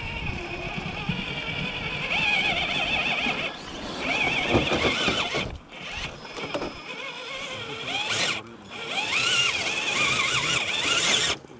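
RC scale rock crawler's electric motor and geartrain whining in throttle bursts as it crawls up a steep rock face, the pitch wavering with load. It pauses briefly three times and cuts off just before the end.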